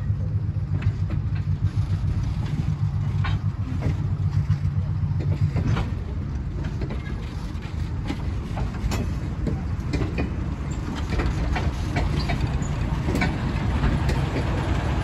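Slow-moving train passing close by: caboose wheels clicking irregularly on the rails over the low, steady drone of a small diesel switcher locomotive. The engine drone grows louder near the end as the locomotive comes alongside.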